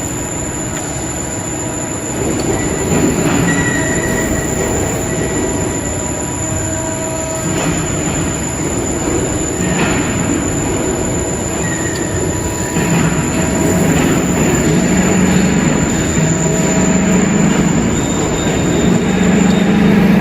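CNC press brake running: steady mechanical noise with short high squeals now and then, and a low hum that grows louder in the second half.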